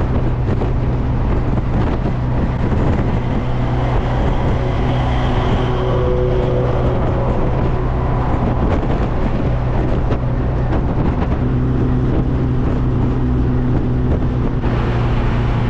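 Steady engine hum and rushing wind and road noise inside an open-top MG Midget driving at speed. A semi-truck passes close alongside partway through, adding its own running noise.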